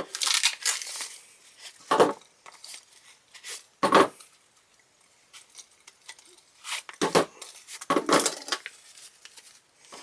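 A nylon tool pouch is handled and its pocket flaps pulled open with short ripping sounds. Small stainless steel multi-tools are taken out of the pockets and set down on a hard table with several sharp metallic knocks.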